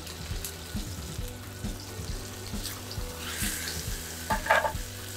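Sea bream fillet sizzling as it pan-sears in a nonstick frying pan, over background music with a steady beat about twice a second. A brief louder sound comes about four and a half seconds in.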